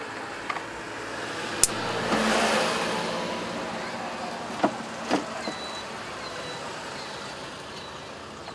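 A motor vehicle passing on the road, its noise swelling to a peak about two seconds in and then slowly fading, with a few light clicks.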